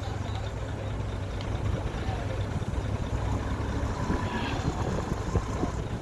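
Hyundai dump truck's diesel engine running steadily, a low hum, with its tipper bed raised to dump a load of soil.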